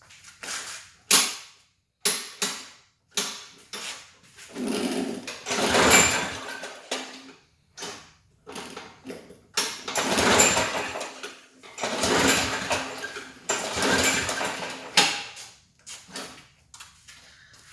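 Briggs & Stratton 650 series lawn mower engine being pull-started again and again with the recoil starter rope. It turns over in a string of short and longer cranking bursts but never catches: a no-start that a cleaned spark plug has not cured, which the owner puts down to the carburetor.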